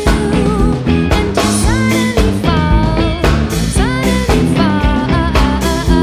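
A rock band playing live: electric guitars over a steady drum-kit beat, with a lead melody that slides up in pitch twice.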